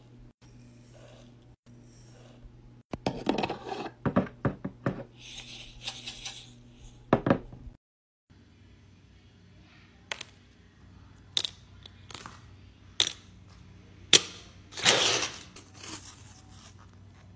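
Small resin diamond-painting drills poured into a glass jar, a dense rattling clatter of many tiny pieces. Then the clear plastic cover film on a diamond-painting canvas is handled, with several separate sharp clicks and a longer rustle as the hand sweeps over it.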